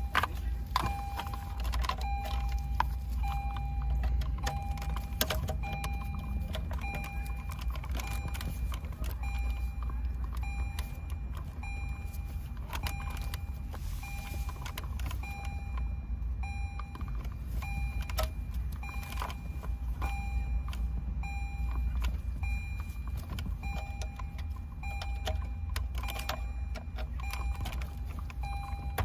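Clicks and rattles of plastic wiring-harness connectors being handled and plugged in behind the dashboard, over a low steady hum. A short electronic beep repeats about once a second throughout, typical of a car's warning chime.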